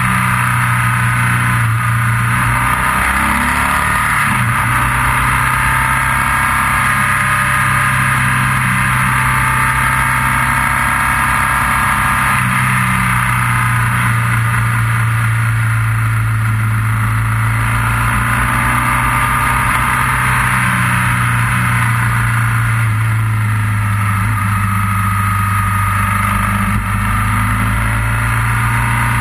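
Motorcycle engine running steadily while riding, its pitch shifting briefly about three seconds in and picking up again about twelve seconds in, over a constant rush of noise.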